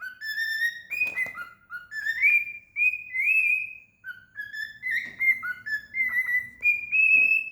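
Cockatiel whistling a tune: a string of clear whistled notes that step and slide upward, with a few short clicks among them.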